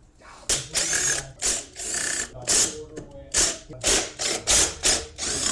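Socket ratchet wrench swung back and forth on a bolt of an ATC's rear axle housing. Each swing gives a short burst of pawl clicks, about twice a second.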